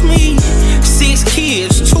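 Hip hop beat with deep sustained bass and a kick drum, and a melodic line that bends in pitch over it; the bass drops out briefly near the end.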